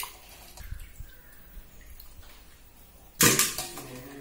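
Hands swishing and rubbing pieces of pork in water in a steel basin, washing the meat, with one sudden louder splash about three seconds in.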